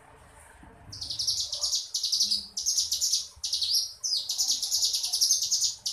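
Ciblek gunung, a mountain prinia, singing in 'ngebren' style. About a second in, it starts a run of high, fast trilled phrases of about half a second each, repeated in quick succession with barely a pause.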